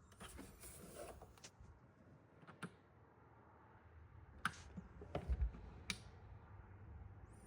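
Handling noises: a rustle in the first second or so, then a few scattered sharp clicks and a low thump, as of a power cord and plug being handled and fitted.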